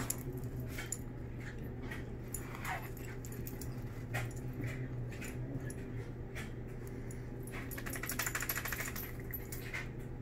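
A small dog and a Russian blue cat play-wrestling: scattered light clicks, scuffles and jingling, with a quick rattling burst near the end. A steady low hum runs underneath.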